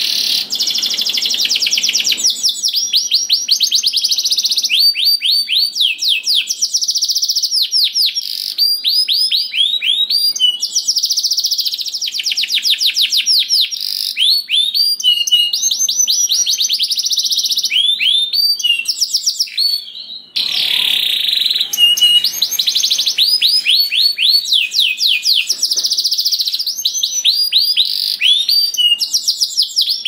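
Domestic canary singing a long, loud, continuous song made of fast rolling trills: runs of quickly repeated high sweeping notes that change from one run to the next, with a short break about twenty seconds in.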